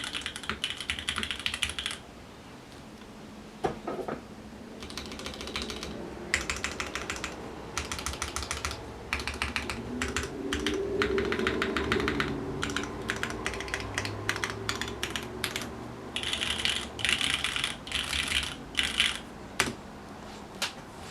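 Typing on a Frog TKL mechanical keyboard with an aluminium plate and lubed Cherry MX Black linear switches: bursts of rapid keystrokes broken by short pauses, with a few single strokes between the bursts.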